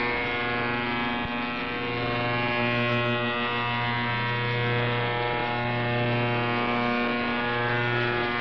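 Steady, very loud shortwave buzzer from a Qodosen SR-286 radio's speaker tuned to 11935 kHz, drowning out Republic of Yemen Radio. Its lowest tone drops out now and then. The listener takes the buzz for a jammer rather than a faulty transmitter.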